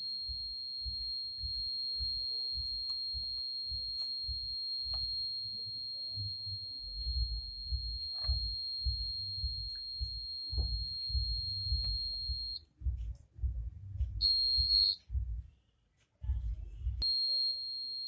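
Alarm circuit's buzzer sounding one steady high-pitched tone while its range-setting variable resistor is turned with a screwdriver. The tone cuts off about two-thirds of the way in, returns briefly, then comes back on steadily near the end. Low knocks and rumble from the screwdriver and hands working on the breadboard run underneath.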